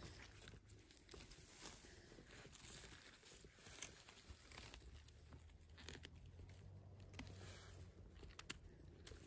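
Faint crunching and rustling of dry grass, moss and needles as chanterelles are pulled from the forest floor and their stems are trimmed with a small knife, with a few light sharp clicks.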